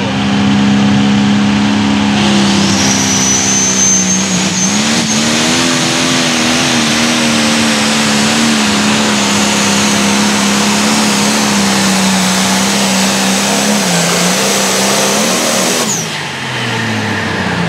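International 5488 limited pro stock pulling tractor's turbocharged diesel engine running at full power under load as it drags the sled, with a high whine climbing in pitch about two seconds in. Near the end the engine drops off and its pitch falls away as the pull ends.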